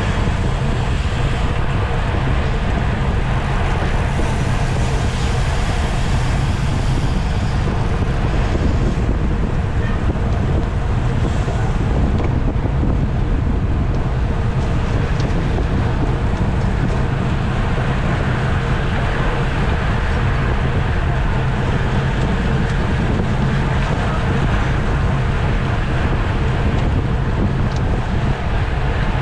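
Steady, loud wind buffeting the microphone of a camera on a bicycle racing at speed.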